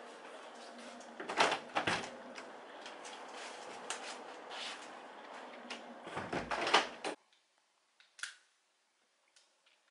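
Rustling and handling noise of a handheld camera being moved about, with several knocks and clicks, the loudest near the start and again about six to seven seconds in, over a steady hiss that cuts off suddenly just after that.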